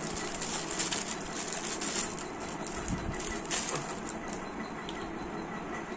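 Thin plastic prize packet crinkling and crackling as fingers tear it open and pull out a small plastic toy fan, with most of the crackle in the first two seconds and one last crinkle about three and a half seconds in.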